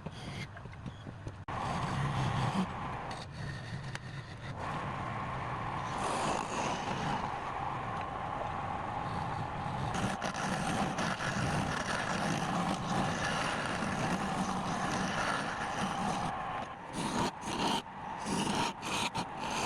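A lathe running with a hand tool scraping against the spinning workpiece: a steady whine under a rough scraping noise, which breaks into short stop-start bursts near the end.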